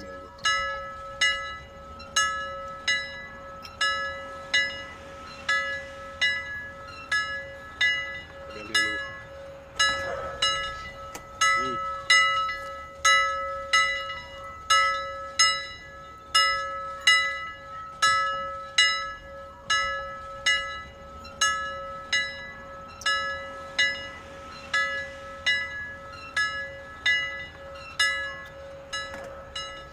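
A temple bell rung steadily during worship, about one stroke every 0.8 seconds, each stroke ringing on until the next.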